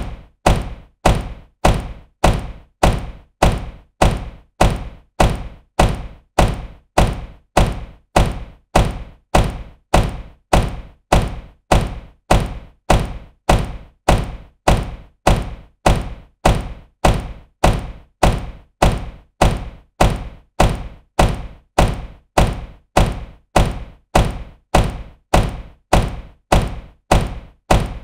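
A supercar door shutting with a solid thunk, repeated over and over at an even pace of about three every two seconds, each shut dying away quickly.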